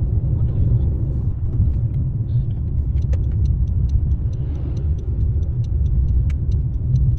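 A car driving on the road, with a steady low rumble of engine and tyres. From about three seconds in, a regular light ticking runs about four times a second.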